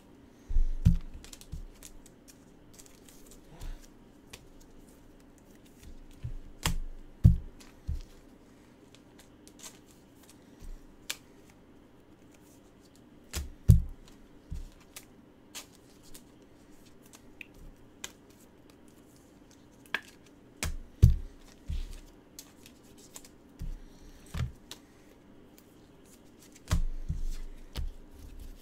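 Intermittent tabletop handling noises as trading cards are sorted: sharp clicks and dull knocks every second or few, with a few louder thumps, over a faint steady hum.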